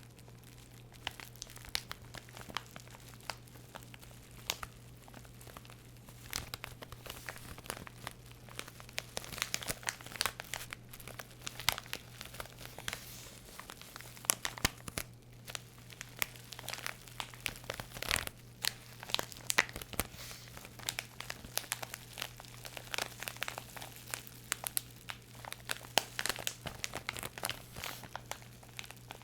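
Crinkling and crackling of a crinkly material, such as plastic packaging, being handled close to the microphone, in a dense, irregular run of small sharp crackles. A faint steady low hum lies underneath.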